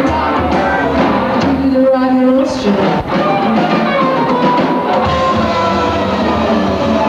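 Live rock band playing: electric guitars and drum kit, with a woman singing into a microphone.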